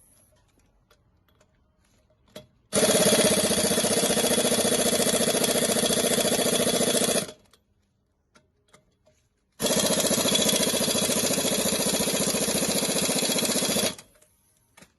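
Impact wrench running in two bursts of about four and a half seconds each, starting and stopping abruptly, with a quiet gap of about two seconds between them.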